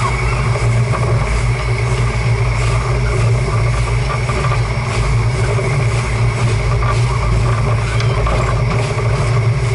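OL49 steam locomotive pulling slowly away with a train, heard up close from beside its driving wheels: a loud, steady mix of running gear and exhaust.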